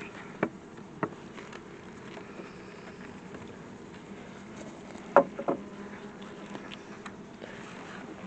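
Italian honeybees buzzing in a steady hum from an open hive, with a few sharp knocks: two in the first second or so and a close pair about five seconds in.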